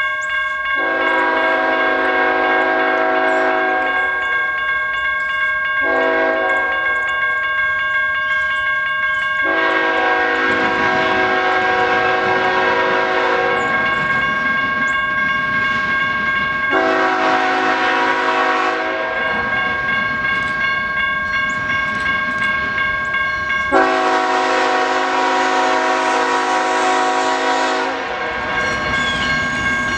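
Multi-chime air horn of an approaching BNSF GE diesel freight locomotive sounding five blasts: long, short, long, a shorter one, then long. Between and after the blasts the train's engines and wheels rumble, growing louder near the end as the locomotives draw close.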